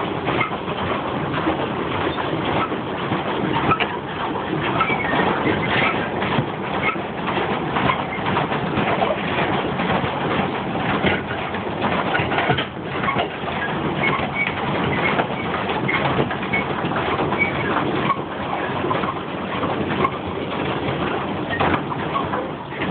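Pedal boat paddle wheel churning and splashing water, with the clatter of the pedal drive, steady and close.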